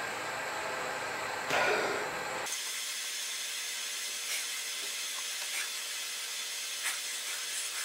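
Locking pliers and an aluminum pin-puller tool being twisted back and forth on a steel locating dowel in an engine block, making a louder scrape about one and a half seconds in and then a few faint clicks and scrapes over a steady hiss. The dowel is just beginning to turn.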